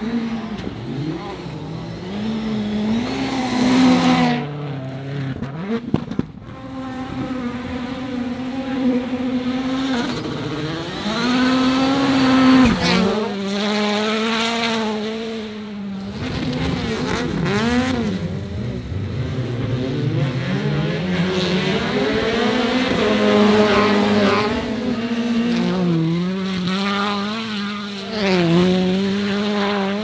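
Rallycross supercars' turbocharged engines revving hard, the pitch climbing and dropping again and again through gear changes and lifts as cars pass one after another. A few sharp cracks about six seconds in.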